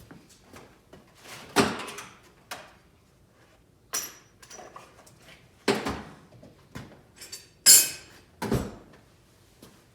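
Metal tools and parts being handled while a lathe is put back together: a series of irregular clanks and knocks, some with a short metallic ring, the loudest about a second and a half in and near the eight-second mark.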